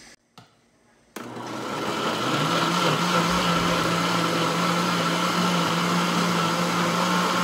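Electric countertop blender switching on about a second in, its motor speeding up over the next second, then running steadily as it purées milk and canned corn kernels.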